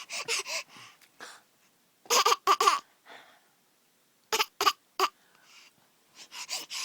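A baby making weird, breathy, squeaky little vocal noises in short bursts, in clusters about two seconds in (the loudest), around four and a half seconds in, and near the end.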